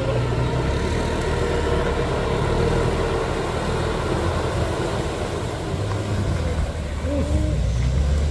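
Heavy truck engine running steadily with a low rumble.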